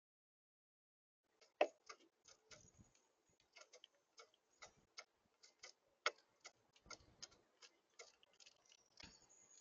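Birds pecking at seed on the feeder: irregular light taps and clicks close to the microphone, starting about a second and a half in, the loudest about six seconds in.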